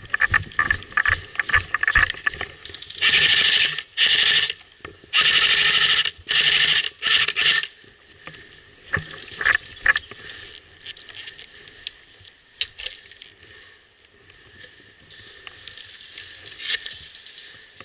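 Airsoft electric rifle firing five short full-auto bursts of under a second each, its gearbox buzzing, between about three and seven and a half seconds in. Before and after, footsteps crunching through dry leaves and twigs.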